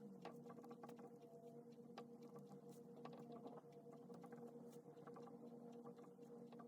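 Faint pen scratches and light taps on paper as someone writes by hand, over a steady low hum.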